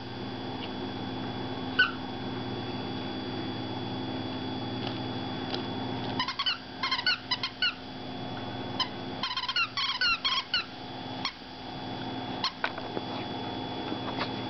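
Puppies squeaking and yipping in play: short, high squeaks that slide in pitch, coming in two quick flurries about six and nine seconds in, over a steady hum.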